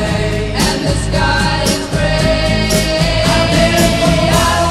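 Background music: a song with a singing voice over drums.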